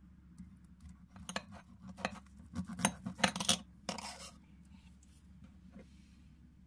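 A metal knife and fork clink and scrape against a porcelain plate while cutting through a soft stuffed potato cake: a run of quick clinks and scrapes over about three seconds in the middle, the loudest just past halfway, then quiet handling of the plate.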